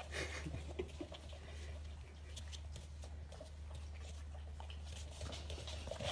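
Faint scuffling and light taps from corgi puppies moving during grooming, over a steady low hum.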